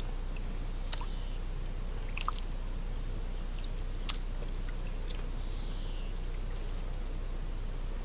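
Steady low hum and hiss of an outdoor live-cam microphone, with a few faint sharp clicks and one brief high chirp near the end.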